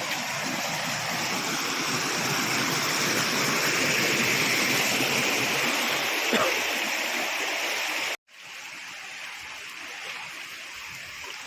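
Steady rush of flowing water from a mountain stream or waterfall. It breaks off for an instant a little after eight seconds in and comes back quieter.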